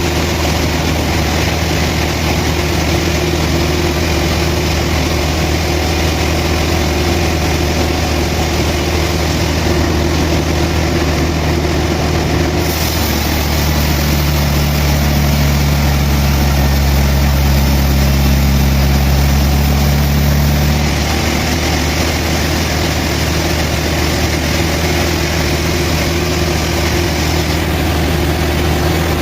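Sawmill engine running steadily. From about 13 to 21 seconds in it gets a little louder, with an added hum and more hiss, as if under load.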